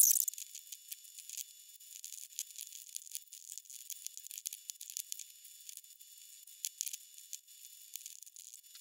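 Faint, thin, rapid clicking of a netbook keyboard and mouse, sped up, over a light hiss.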